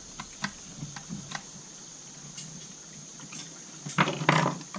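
Scattered light clicks and ticks of hand tools and chainsaw parts being handled, with a louder cluster of clicks and rattles about four seconds in.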